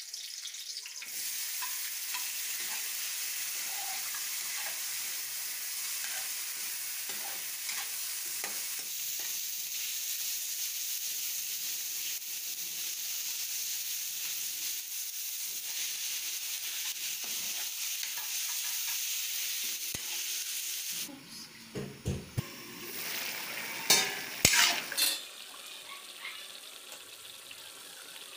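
Chopped tomatoes and onion sizzling as they sauté in a metal wok, with a metal ladle stirring and lightly scraping the pan. About two-thirds of the way in the sizzling stops abruptly and a few loud knocks follow.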